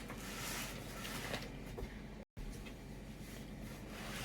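Cardboard packaging rustling and scraping as a microwave's box is handled and pulled at, with a few faint knocks. The sound drops out for an instant just past halfway.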